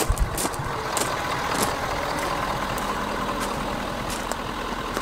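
Pickup truck engine idling steadily, with a few sharp clicks in the first two seconds.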